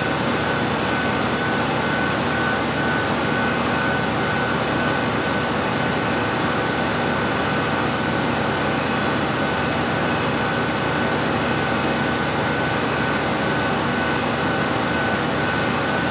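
Steady machine noise from running laboratory equipment: an even whooshing hum with a constant high whine held through.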